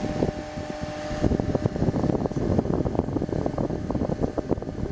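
Cooling fan of a TV transmitter running, with an irregular low rumble of wind noise on the microphone starting about a second in.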